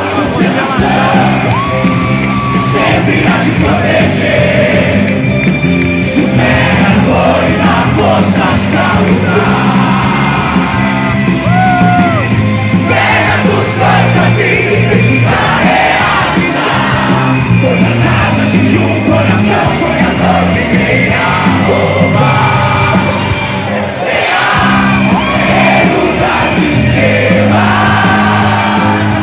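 Loud live performance of an anime song: music with a lead singer, and a crowd yelling and cheering along.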